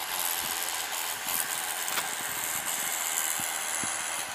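Small waves washing against a rocky, pebbly shoreline: a steady hiss with faint scattered clicks.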